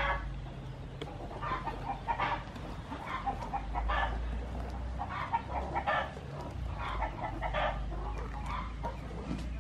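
Chickens clucking repeatedly in short, irregular runs, over a low steady rumble.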